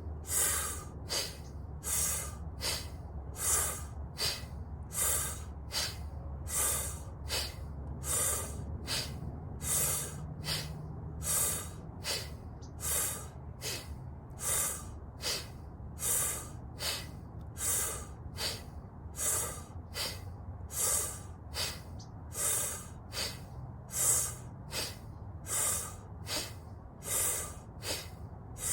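Rapid, rhythmic breathwork breathing: quick inhales through pursed lips alternating with forceful, sneeze-like exhales pushed out through the nose, driven by the belly. The breaths repeat at a quick, even rhythm.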